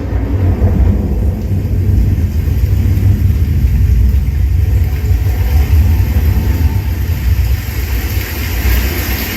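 Zebronics Juke Bar 9700 Pro soundbar and subwoofer playing a demo track at full volume, heard through the room: a deep, continuous bass rumble under a noisy wash, with a hiss that swells in the last couple of seconds.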